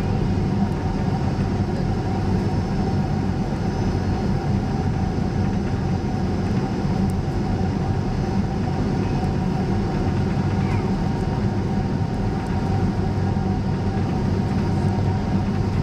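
Steady cabin noise inside a Boeing 767-300 in flight: a constant drone of engines and airflow with a low hum, unchanging throughout.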